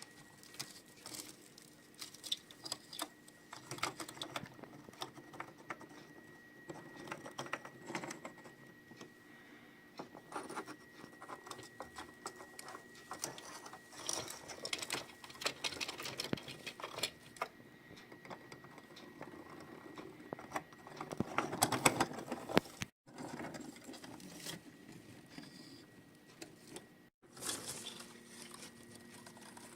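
Small clicks, taps and light rattles of 1:32 diecast and plastic toy farm models being handled and moved about, with a louder rustling, scraping swell about three-quarters of the way through.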